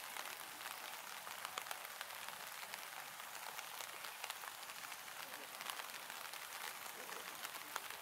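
Light drizzle falling: a steady hiss dotted with irregular sharp ticks of raindrops.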